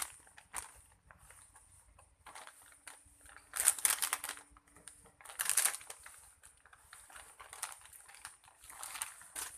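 A french-fries-shaped foam squishy toy being squeezed and crushed in the hand, making soft crinkling, crushing sounds. The sound comes in a few separate bursts, the loudest about three and a half seconds in.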